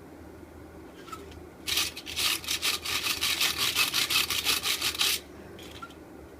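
Rapid back-and-forth scraping strokes, about five or six a second, starting about two seconds in and stopping after roughly three and a half seconds, over a low steady background hum.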